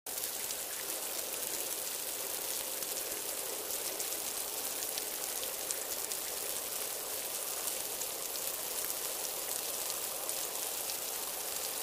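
Old-film crackle and hiss: a steady high hiss peppered with small scattered clicks and pops, like a worn film reel or record.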